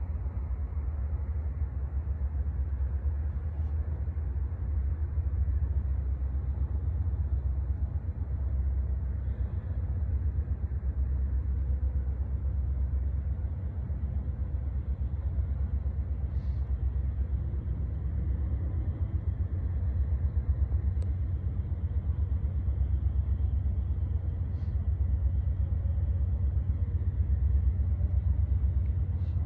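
Distant diesel freight locomotives rumbling as the train approaches: a steady low rumble.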